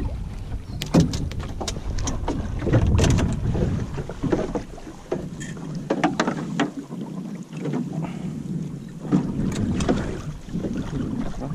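Small fibreglass boat at sea: water slapping and lapping against the hull with wind on the microphone, and irregular knocks and rustles as the gill net is handled over the gunwale.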